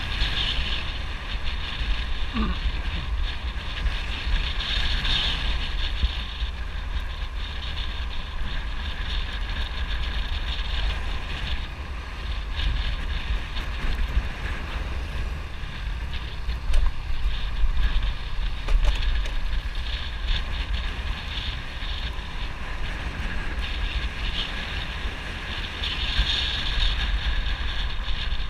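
Motorbike ride heard from the rider's camera: steady wind rumbling on the microphone, with the bike's engine and road noise running underneath.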